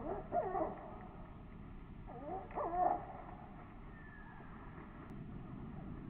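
Two short bouts of wavering, pitched animal calls, the first just after the start and the second at about two to three seconds in, over a steady low background noise.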